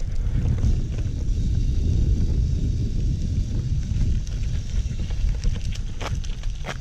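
Steady low rumble from riding a bicycle: wind buffeting the microphone and the tyres running over a rough lane and gravel path. A few sharp clicks near the end.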